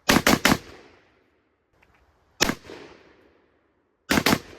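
Gunshots with a short echo after each: three fired in quick succession, a single shot about two seconds later, then two more close together near the end.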